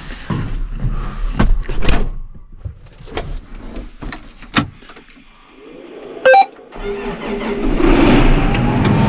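Several knocks and clanks, then a short, loud beep, after which an engine starts and runs steadily, getting louder over about a second.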